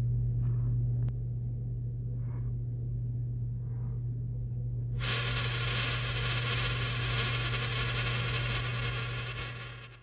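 A coin rattling and whirring as it spins on a wooden desk. It cuts in abruptly about halfway through and fades out near the end. Before it come a few faint taps, over a steady low electrical hum.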